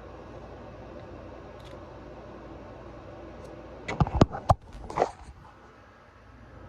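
A steady low hum, then a quick run of three or four sharp clicks or knocks about four seconds in and one softer knock a second later, like things being handled close to the microphone.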